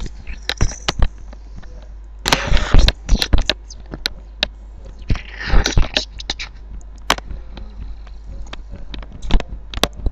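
Scattered knocks and clicks, with two short bursts of rough noise about two and five seconds in, over a steady low hum.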